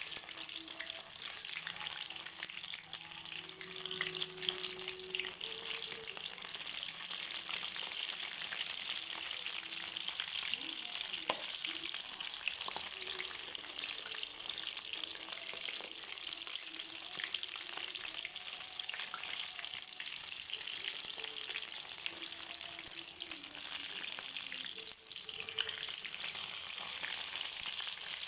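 Breaded chicken pieces deep-frying in hot oil: a steady sizzle with many small crackles.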